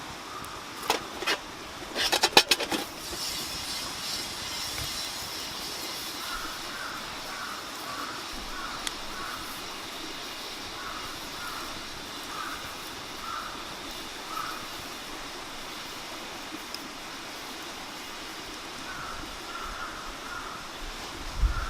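Mountain stream running steadily. About a second in come a few sharp clicks, then a quick clatter of clicks; after that, short chirps repeat about twice a second for much of the time, pausing for a while before starting again near the end.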